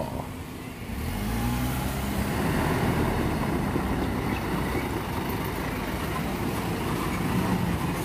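Diesel engine of a Hino garbage truck driving up and turning past close by: a steady low engine note that comes in about a second in and holds.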